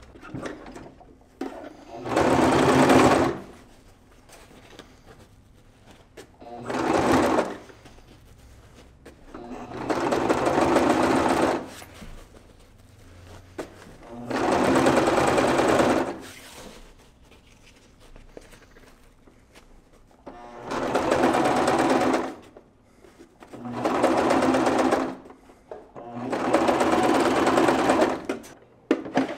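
Bernette electric sewing machine stitching a side seam through backpack fabric in short runs, starting and stopping about seven times with brief pauses between.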